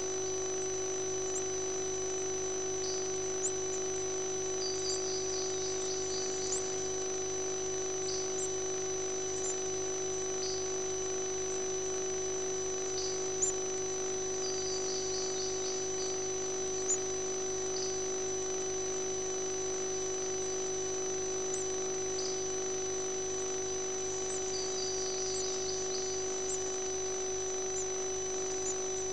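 Steady electrical hum of a nest-box camera system, with faint high squeaky chirps three times in short clusters: warbler and cowbird nestlings begging as an adult warbler tends them.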